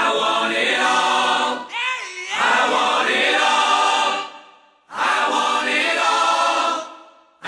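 Music of a choir singing in two long held phrases, with a half-second gap a little past halfway.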